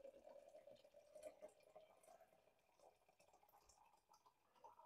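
Hot water poured in a thin stream from a kettle into a glass French press over coffee grounds, faint, its pitch rising slowly as the press fills.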